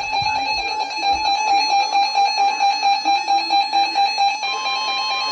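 Emergency alert attention tone: a loud, steady electronic tone with a rapid pulse about four times a second, joined about four and a half seconds in by a second, slightly higher tone, ahead of a broadcast warning.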